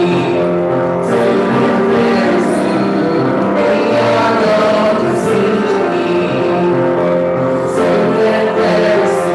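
A hymn sung with piano accompaniment, in slow, held notes.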